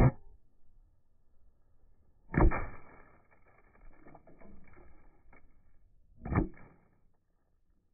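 Heavy wooden mallet slamming down onto a wooden post three times. The first hit swells up and cuts off sharply, as if played backwards. The second, about two and a half seconds in, rings on for a few seconds, and the third, about six seconds in, is short.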